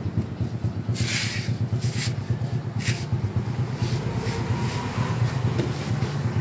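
An engine running steadily at idle with an even low pulse. Three or four short bursts of hiss or rustling come about a second apart during the first half.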